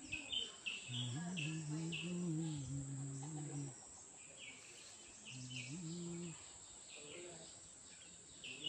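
Insects drone steadily outdoors, with short chirps repeating in the background. A low steady-pitched hum sounds twice, for about three seconds from a second in and briefly again past the middle; it is the loudest sound.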